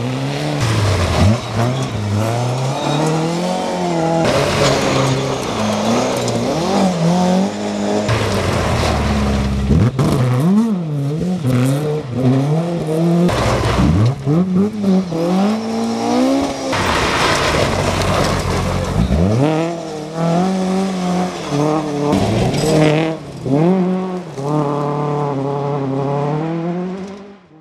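Rally cars, among them a Ford Escort Cosworth and a Mk2 Ford Escort, driven hard on a loose gravel forest stage one after another. Engines rev up and fall away repeatedly through gear changes and lifts. The sound fades out right at the end.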